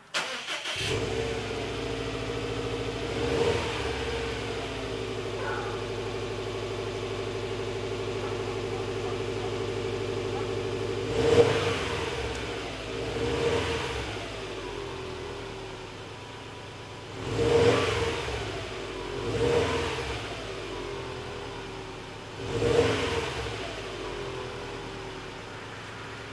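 2011 Subaru WRX STI's turbocharged 2.5-litre flat-four engine, heard through its stock exhaust, starts up and runs at a steady fast idle. About eleven seconds in, it is blipped five times with short throttle revs, settling back to a lower idle between them.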